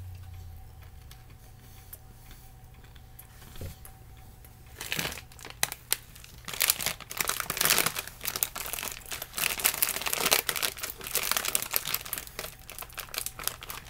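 Crinkly plastic snack bag being handled and crumpled. Dense, irregular crackling starts about five seconds in after a quiet stretch.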